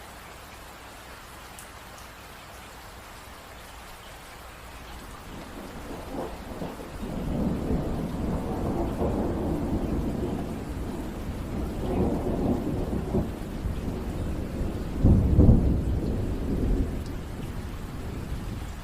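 Steady rain with a long roll of thunder that builds from about five seconds in, rumbles in waves, is loudest about three-quarters of the way through, then fades.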